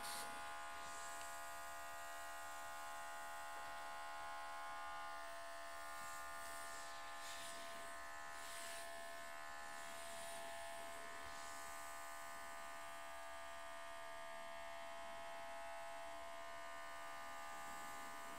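Small cordless airbrush compressor's motor running with a steady, faint buzz, with a soft hiss of air from the airbrush now and then as paint is sprayed.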